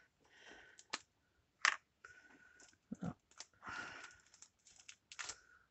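Faint handling sounds of craft supplies on a work table: a string of small clicks and taps with short rustles between them.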